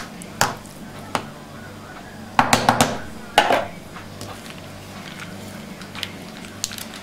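A metal utensil tapping and scraping against a plastic food container and dishes while spreading a salad layer: scattered clicks, with a louder cluster of clatter about two and a half to three and a half seconds in. A low steady hum runs underneath.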